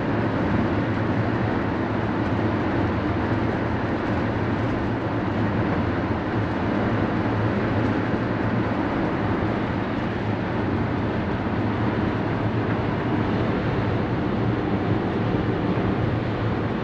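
Steady cabin noise inside a van-based motorhome driving at highway speed: engine, tyre and wind noise with a constant low hum, about 73 decibels on a sound meter. This is the baseline before the fiberglass cab-over cap is soundproofed.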